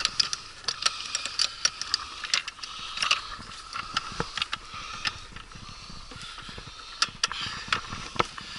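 Irregular clicks and knocks from the transom clamp and bracket of a Suzuki 9.9 hp outboard motor as it is fitted to an inflatable boat's transom and its clamp screws are turned tight.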